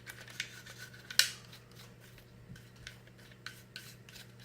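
Small clicks and light scraping of disassembled Glock 19 pistol parts being handled, with one sharper click about a second in.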